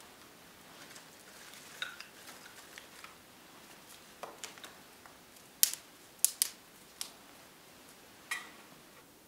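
Scattered light clicks and taps from hands working at a small smoking wood fire, then several sharp cracks. The cracks come in a cluster about halfway through, and one more comes near the end.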